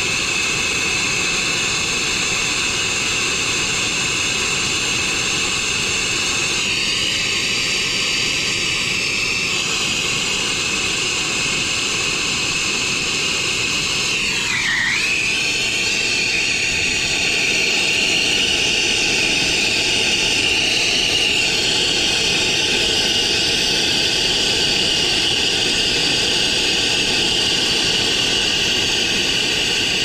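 Brazing torch flame burning steadily as it heats copper refrigerant line joints for brazing: a continuous rushing hiss with a faint whistle. Its pitch briefly dips about halfway through as the flame is moved.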